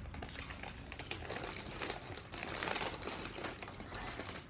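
Plastic snack bag of hot fries crinkling as it is handled, with irregular crackles throughout.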